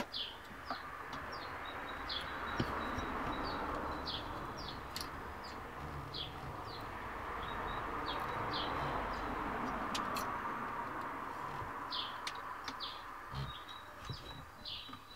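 Birds chirping repeatedly over a steady background hiss that swells and fades, with a few faint clicks.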